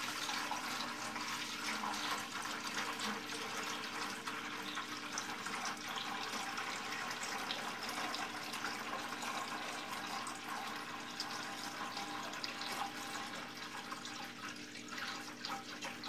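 Water pouring in a steady stream from a plastic watering can into a partly filled plastic bucket.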